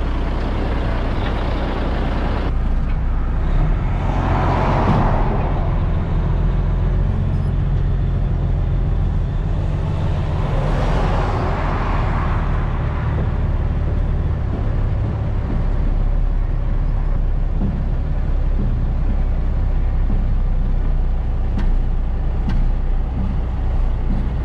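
Dump truck's diesel engine running, heard from inside the cab, swelling louder twice, about four seconds in and again around eleven seconds, as the truck, stuck in slick clay, tries to work free.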